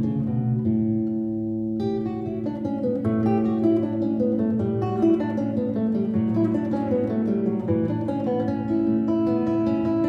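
Background music: a solo guitar playing a run of plucked, arpeggiated notes over a sustained low note.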